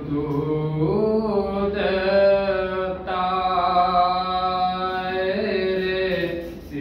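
A teenage boy reciting a naat unaccompanied, in a long melodic line of held notes that glide slowly in pitch. There is a short pause for breath about three seconds in.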